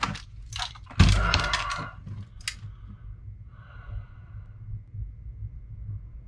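Plastic case of a 1994 Epson Action Note 660 CX laptop base being handled and turned over: clicks, knocks and a clattering scrape of brittle, cracked plastic, loudest about a second in, then only faint handling noise.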